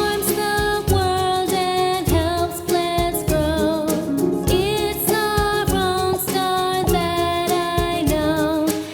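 Upbeat children's song: a sung melody over a steady beat.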